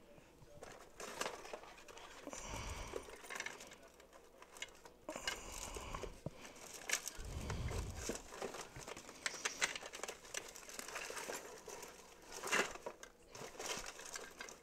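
Someone rummaging by hand among tools and loose items, searching for a screwdriver: irregular rustling and crinkling broken by scattered small clicks and knocks.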